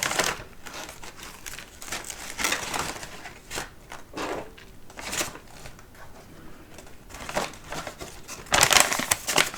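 Packaging crinkling and rustling as it is handled, in short irregular bursts, with a louder run of rustling near the end.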